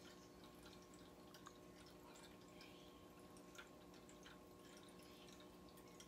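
Near silence: room tone with a faint steady electrical hum and a few scattered faint ticks.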